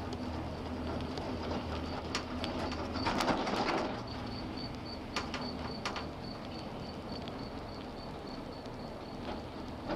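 Poma detachable gondola cabin running along its haul rope, heard from inside: a steady low hum and rush with scattered light clicks, swelling louder about three seconds in.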